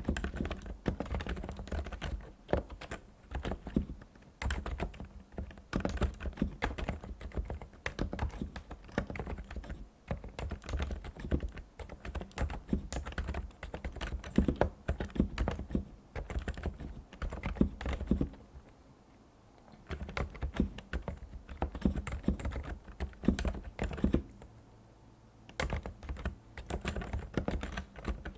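Typing on a Realforce R2 PFU Limited Edition tenkeyless keyboard with Topre electrostatic capacitive switches: a steady run of keystrokes, broken by two brief pauses, one a little past the middle and one near the end.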